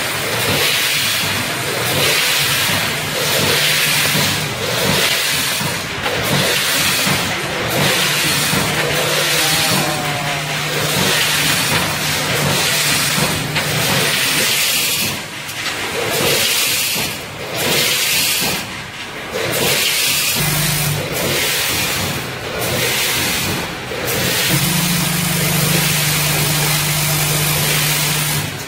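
Automatic packaging machine with a multihead weigher running: steady mechanical noise and hiss that pulses in a regular cycle about every one and a half to two seconds, with a low hum that comes and goes.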